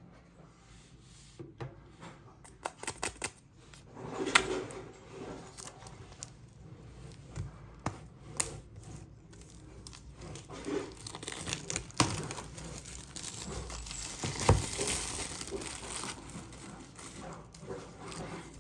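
Packaging of an iPad mini box being torn open and handled: paper tearing and crinkling, with scattered clicks and a few louder knocks of handling.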